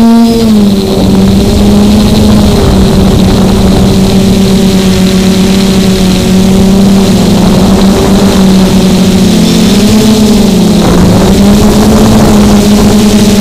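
Brushless motors (Quanum MT 2814 880KV) spinning 10-inch carbon-fibre propellers on a multirotor in flight, a steady, loud hum heard close up through the onboard action camera. The pitch wavers slightly and dips briefly about ten seconds in.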